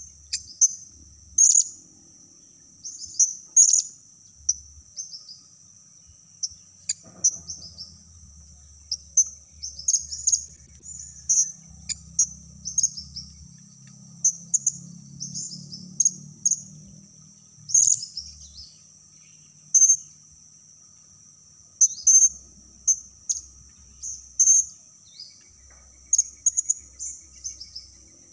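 Blue-crowned hanging parrot (serindit) calling as a decoy lure: short, sharp, high-pitched chirps every second or two, sometimes in quick clusters of several. A steady high insect drone runs underneath.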